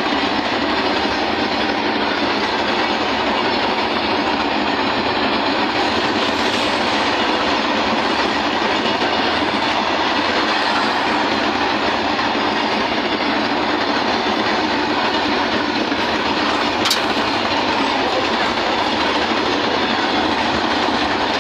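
A freight train of open-top wagons passing close by, its wheels running over the rails with a steady, loud clatter. There is one sharp clank about seventeen seconds in.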